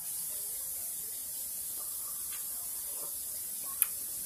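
Steady high-pitched hiss that starts abruptly and holds level, with a single click near the end.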